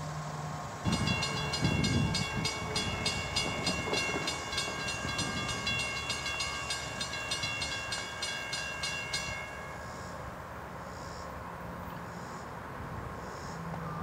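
Railroad grade-crossing warning bell dinging rapidly, about three strikes a second, starting about a second in and stopping after about eight and a half seconds.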